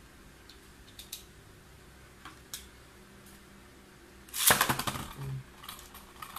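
A few light plastic clicks as a Beyblade is fitted onto a string launcher. About four seconds in comes a loud burst of rapid clicking as the launcher's pull cord is ripped and the top drops into the plastic stadium, followed by lighter clicks and rattles as the top spins in the stadium.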